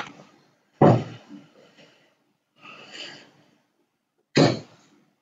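Darts striking a dartboard, heard as sharp thuds with a short decaying ring: one at the start, a louder one about a second in, and another near the end. A softer rustling stretch comes around three seconds in.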